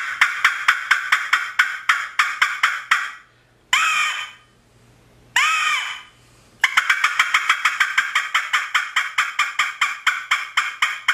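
Double-reed coon squaller call blown to imitate a squirrel bark. It gives a fast run of short barks, about five a second, then two drawn-out whining notes a second or so apart, then another long run of fast barks.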